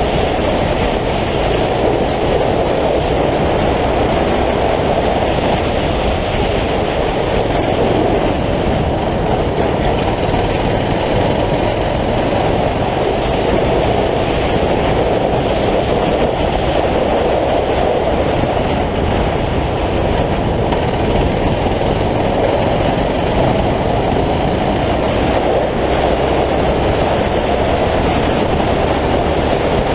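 9 hp racing kart engine running hard through a lap, heard from on board as a loud, steady, dense engine noise.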